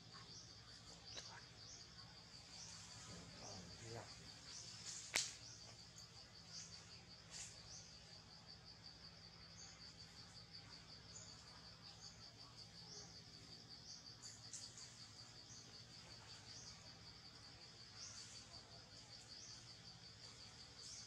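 Insects trilling steadily in a rapid, even pulse, with short high chirps about once a second. One sharp click about five seconds in.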